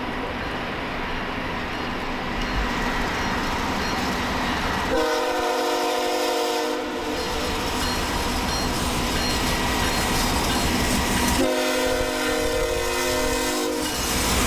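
Approaching freight train's locomotive air horn sounding two long blasts, each a chord of several steady tones lasting about two seconds. The first blast comes about five seconds in and the second about eleven seconds in, over the train's steady rumble.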